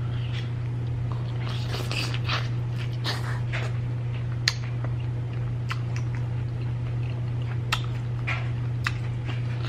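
A man chewing fried chicken close to the microphone, crunching in the first few seconds and then sparse wet mouth clicks, over a steady low hum.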